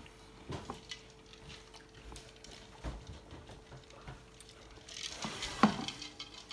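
Scattered small crunches, clicks and rustles of people eating tortilla-chip nachos, with a louder rustle and knock about five and a half seconds in. A faint steady hum runs underneath.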